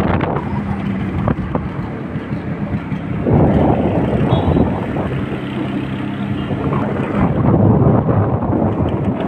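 A motor vehicle's engine running while moving along a road, with wind rushing over the microphone; the wind noise swells twice.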